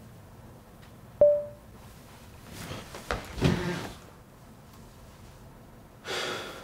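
A short, sharp ping with a brief ringing tone about a second in, the loudest sound. Then a rustle with two soft knocks, and near the end a man breathing out hard through pursed lips.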